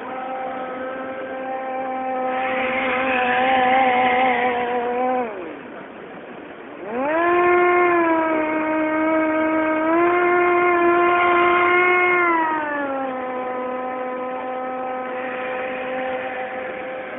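Radio-control model hovercraft's motor and ducted fan running with a steady hum. It dies away about five seconds in, then rises sharply in pitch around seven seconds as it is throttled up, holds high, and falls back to the lower steady hum near thirteen seconds.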